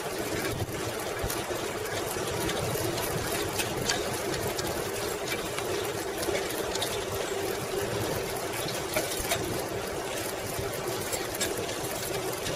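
A 1995 Schwinn Classic Cruiser bicycle rolling along an asphalt path while being pedalled: a steady whir of tyres and drivetrain, with scattered small clicks and rattles.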